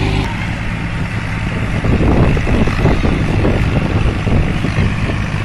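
Massey Ferguson tractor engine running steadily; after the first moment it is heard from afar under a rough, gusty wind rumble on the microphone.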